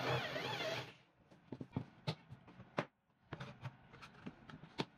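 Scattered clicks and light knocks of a trigger-style bar clamp being released and tools handled on a plywood workbench. Background music cuts off about a second in.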